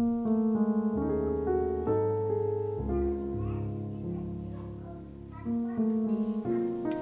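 Background piano music: a slow run of held notes over low bass notes, changing about once a second.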